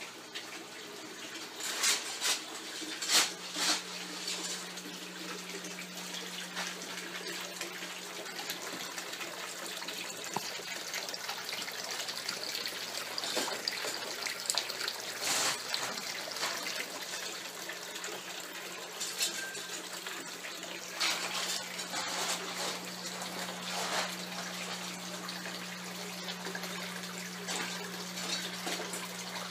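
Water pouring and splashing steadily from a PVC return pipe into an aquaponics fish tank, with a steady low hum underneath. A few sharp clicks sound about two to four seconds in.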